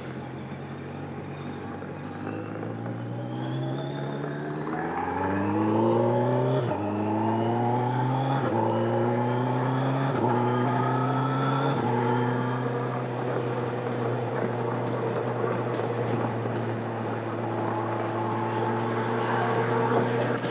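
2025 Kawasaki Z900's inline-four engine through its stock exhaust, running steadily at first, then accelerating hard from about four seconds in, its revs climbing and dropping back at four quick upshifts. After the last shift it settles into a steady cruise.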